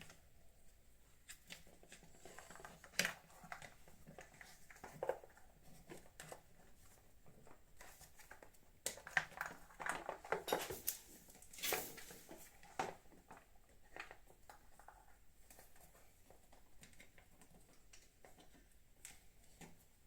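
Scattered faint clicks, taps and rustles of motorcycle headlight parts being handled and fitted into the headlight casing by hand, with a denser run of clicks in the middle.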